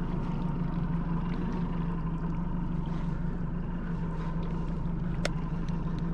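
Fishing boat's engine running steadily with a low, even hum. A single sharp click comes about five seconds in.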